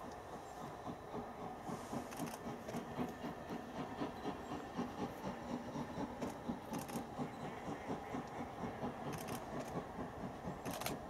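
Steam locomotive working a train toward the listener, its exhaust beating at about two to three beats a second and growing louder as it approaches.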